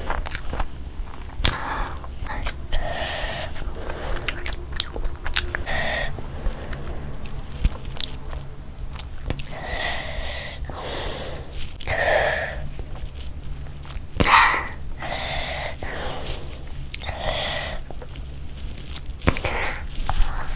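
A person chewing mouthfuls of gravy-dipped burger: wet, clicking mouth sounds, with louder breathy, squelching bursts every second or two.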